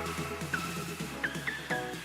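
Electronic background music with repeating synth notes over a shifting bass line.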